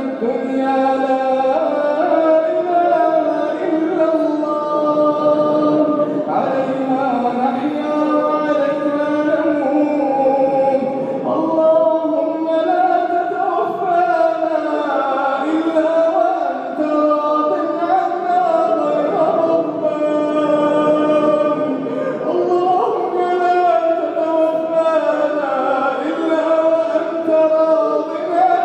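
A man's voice chanting an Arabic supplication (du'a) in a slow, melodic style, holding long, wavering notes between short breaths.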